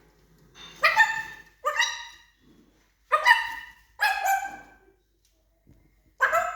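African grey parrot giving five short bark-like calls, a dog's bark imitated, with brief gaps between them.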